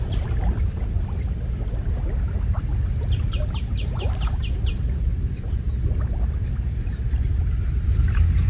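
Water sloshing around a person wading waist-deep while setting a net, under a steady low rumble. A bird sings a fast run of about ten high, falling notes around the middle.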